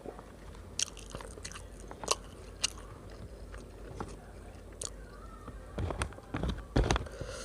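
Close-miked eating sounds: someone biting and chewing roasted chicken rice, with scattered sharp crunchy clicks and a few louder knocks near the end.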